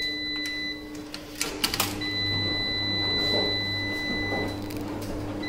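Coins dropping through the coin slot of a coin-operated Speed Queen commercial washer, a quick cluster of metallic clicks about a second and a half in. A long steady high-pitched tone follows from about two seconds in, over a steady low hum.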